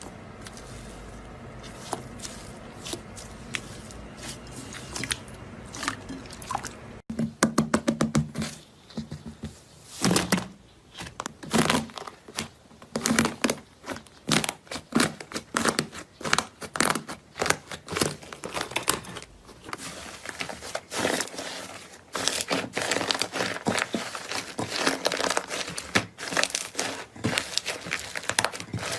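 Slime being squeezed and poked by hand, giving rapid sticky crackles, clicks and pops. Sparse and quieter at first, then louder and denser after an abrupt cut about seven seconds in.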